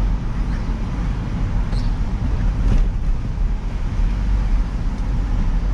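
Steady low rumble of a vehicle's engine and road noise, heard from inside the cab while driving.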